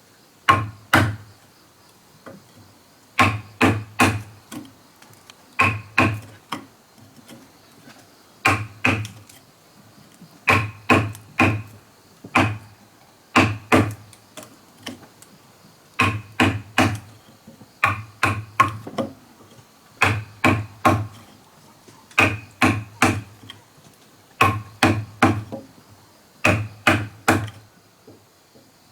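A tool striking wood over and over: sharp blows in quick groups of two to four, a new group every two to three seconds, each blow with a short ring.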